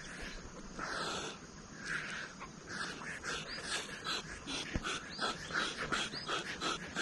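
Dog panting rapidly, about three breaths a second, picking up a few seconds in, with a couple of brief high whines.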